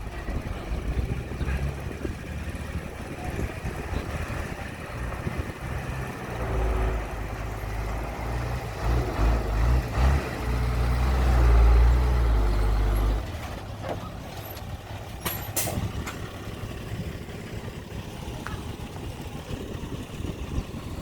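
Heavy diesel engine of earthmoving machinery running, building to a loud, heavier run for several seconds in the middle before easing back, with a few short sharp sounds afterwards.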